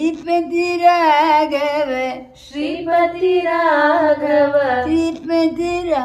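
An elderly man's solo voice singing a Kannada Haridasa devotional song (dasara pada), drawing out long notes with wavering, ornamented pitch. The voice breaks off briefly about two and a half seconds in, then takes up the held melody again.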